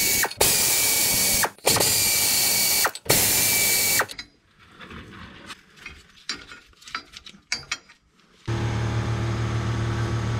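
Cordless electric ratchet spinning a U-bolt nut off a leaf-spring axle clamp, in four runs with short breaks over the first four seconds. Then a few light metal clicks as the loosened parts are handled by hand. A steady hum comes on near the end.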